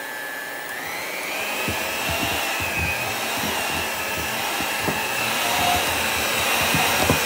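Electric hand mixer running with its beaters whipping icing in a glass bowl. Its whine rises in pitch about a second in as the speed is turned up, then holds steady, with occasional knocks.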